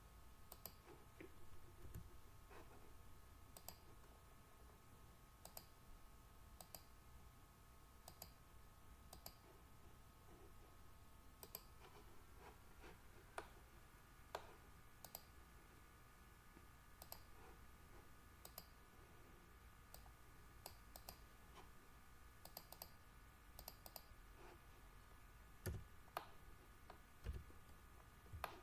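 Faint, irregular clicks of a computer mouse and keyboard, with a few louder clicks near the end, over a faint steady high-pitched electrical hum.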